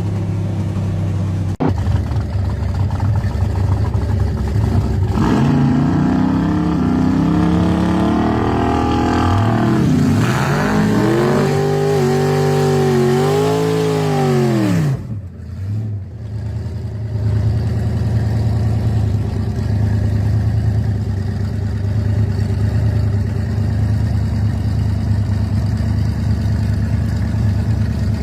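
Gasser drag car engine idling, revved up and down several times in the middle, then dropping back to a steady idle.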